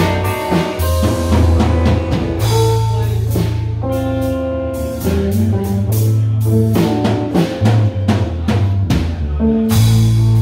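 Live band playing: amplified electric guitars over a drum kit, with bass-drum and snare hits keeping a steady beat under a strong low bass line.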